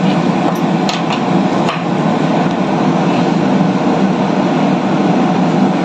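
Steady, loud mechanical noise like ship's ventilation, with a few light clicks and knocks from hand work on the metal caster wheels of a plywood box near the start.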